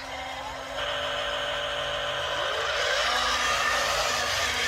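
Electric motors and gearing of a radio-controlled tipper truck whining as the bed is lowered and the truck drives off over dirt. The whine steps up about a second in and grows louder and rougher from about three seconds in.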